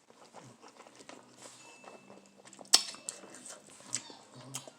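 Eating sounds from a mouthful of spicy instant noodles: soft chewing and mouth noises with scattered small clicks, and one sharp click a little before three seconds in.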